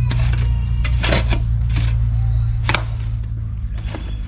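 Metal shovel blade scraping and digging into a pile of wood ash: about five short scrapes, roughly a second apart, over a steady low rumble.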